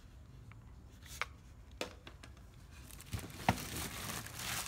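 Unboxed parts and their packaging being handled: a few light clicks and knocks, then crinkling, rustling plastic wrap from about three seconds in.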